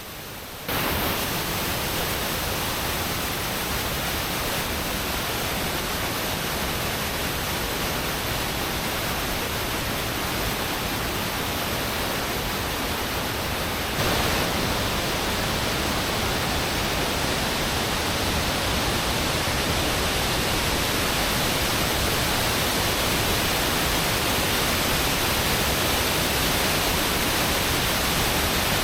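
Waterfall water crashing and cascading close by: a steady, dense rush of falling water that steps up a little louder about halfway through.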